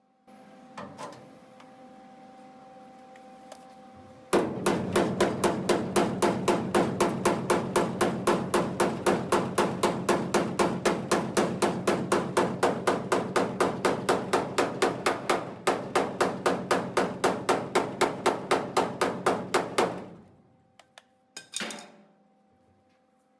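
Steady, rapid hand-hammering on sheet steel, about four blows a second for some fifteen seconds, as a flange lip on a fabricated Beetle body patch panel is bent over.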